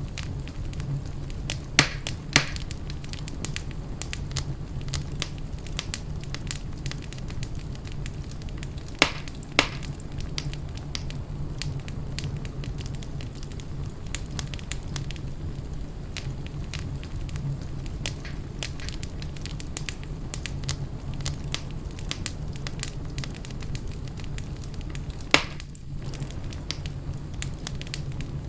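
Wood fire in a fireplace crackling steadily over a low rumble, with five louder sharp pops: two about two seconds in, two around nine seconds in, and one near the end.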